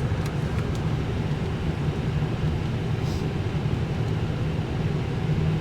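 Steady low hum and rushing air of a parked Airbus A319's cockpit, with the ventilation and equipment cooling running. There is one faint click about three seconds in.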